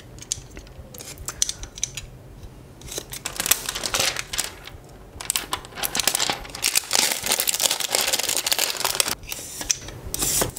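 Clear plastic shrink wrap on a smartphone box being slit with a snap-off utility knife and pulled off, crinkling and tearing in scratchy rustles and clicks. The rustles are sparse for the first few seconds and then come thick and fast through the middle.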